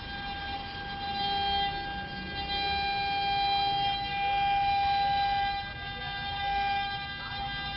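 Twelve-spindle CNC carving router running: the spindles give a steady high-pitched whine with overtones, over a rougher cutting noise that swells and eases.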